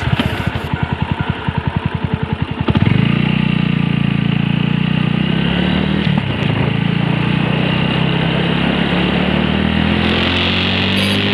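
Suzuki Grasstracker BigBoy's single-cylinder four-stroke engine, first with an even, rapid pulsing beat, then about three seconds in it opens up suddenly and runs on steadily under way.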